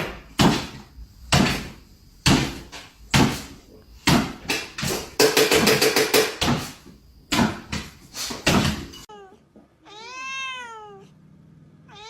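A series of sharp knocks and thumps, then a single long cat meow that rises and falls in pitch about ten seconds in.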